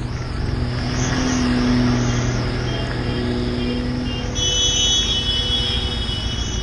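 Low-speed riding noise from a Harley-Davidson Street 750's V-twin, mixed with the engines of heavy lorries close alongside. It is a steady low hum with a rushing haze over it.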